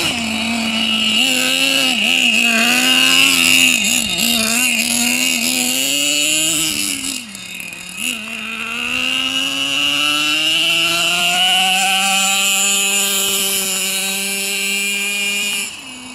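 Nitro RC truck's small two-stroke glow engine running at high revs, its pitch rising and falling as the throttle is worked. Past halfway it becomes a steadier note that climbs slowly.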